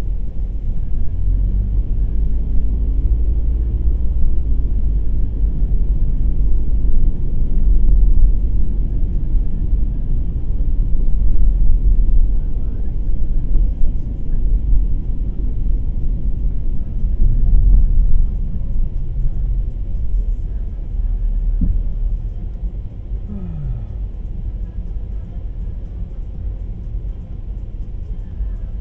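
Car cabin noise while driving in city traffic: a steady low engine and road rumble that swells and eases with speed. It grows quieter over the last few seconds as the car slows behind the car in front.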